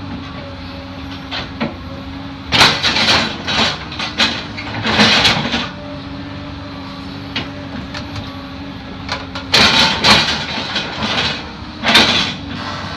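A small excavator's diesel engine runs steadily while the bucket digs into soil and roots. Loud surges of scraping and crunching come several times: about 3 seconds in, around 4 and 5 seconds, and in a longer stretch about two-thirds of the way through.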